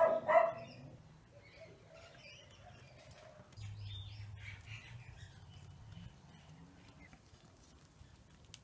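Birds chirping faintly in the background, after a short loud sound right at the start, with a low hum for a couple of seconds in the middle.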